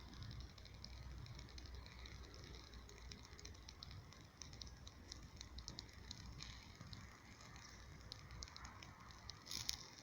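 Faint campfire crackle: many small irregular snaps, with one louder pop near the end.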